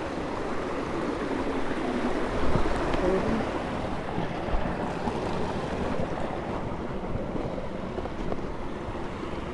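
Steady rush of a mountain stream running over rocks, with a few faint knocks in the middle.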